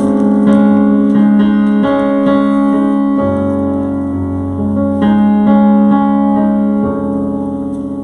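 Keyboard playing slow, sustained chords, with new notes struck about twice a second and the chord changing a few times.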